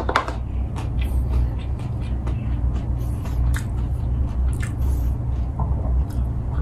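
Close-miked chewing and mouth sounds of a person eating, small wet clicks scattered over a steady low hum. There is a sharp knock right at the start as a hand meets a wooden bowl on the table.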